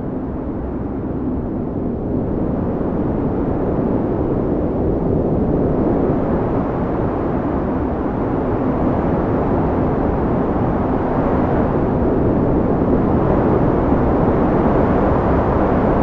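Blizzard wind blowing hard: a steady, deep rushing that slowly swells and grows louder through the middle and later part.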